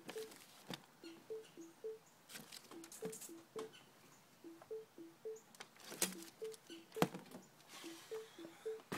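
A simple two-note tune, a lower and a higher note alternating in a steady repeating pattern. Over it come scattered clanks and rustles from the metal chute of a clothing-donation bin being worked as clothes are pushed in, the loudest clanks about six and seven seconds in.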